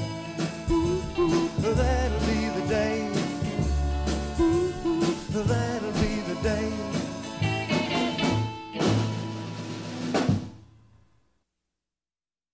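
Background music: a rock song with a drum kit, fading out about ten and a half seconds in, then silence.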